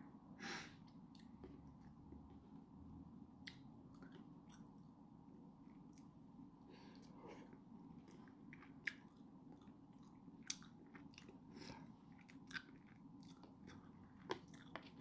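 Faint chewing of food close to the microphone, with a few sharp clicks scattered through it, over a steady low room hum.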